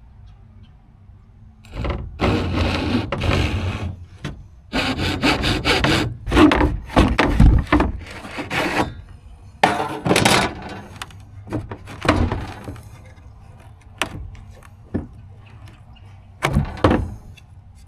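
A saw cutting through a wooden board to trim about four inches off it, in long stretches of rasping strokes for the first half, then shorter, separate strokes near the end as the cut finishes.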